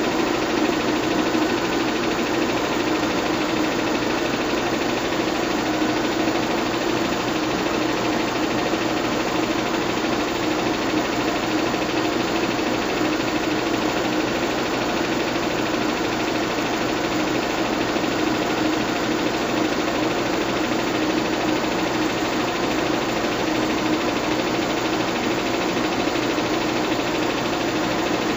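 Bell & Howell 122 LR 8mm film projector running steadily close to the microphone, a constant mechanical drone with a steady hum.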